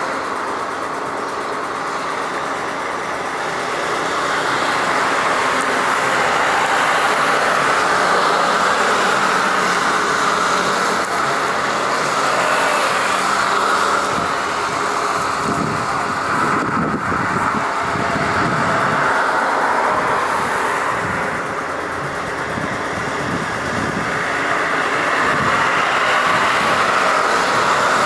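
Boeing 747-200's four jet engines on final approach, a steady jet roar with a whine in it, swelling a little as the airliner nears.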